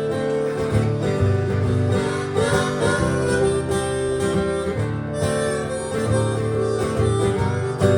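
Acoustic guitar and blues harmonica playing a song's instrumental intro together.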